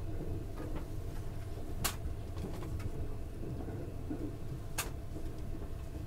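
Steady low rumble of the Thunderbird limited express electric train running at speed, heard inside the passenger car. Two sharp clicks come about two seconds and about five seconds in.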